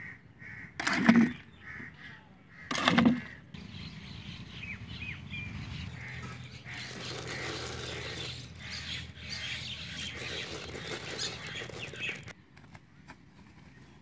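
Two loud thumps about two seconds apart near the start, then birds chirping and calling for several seconds, cutting off suddenly shortly before the end.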